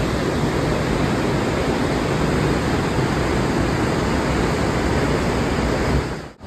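Steady rushing road and wind noise of a car driving, which dips out for a split second near the end.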